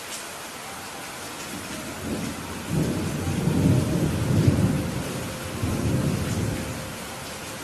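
Steady rain on a roof, with a low rumble of thunder that swells about two seconds in and rolls away near the end.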